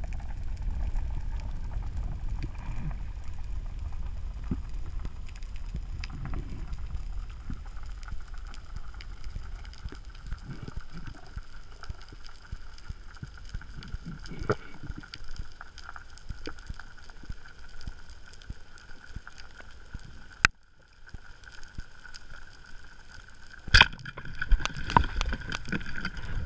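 Underwater sound picked up through a camera housing: a low rumble of water movement with scattered faint clicks and a faint steady high hum. A sharp knock comes about two-thirds of the way in, then a quick cluster of knocks near the end.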